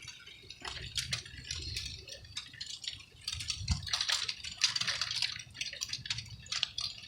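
Sleet (ice pellets) falling and striking surfaces: a dense, irregular patter of small sharp ticks and clicks, growing busier about three seconds in.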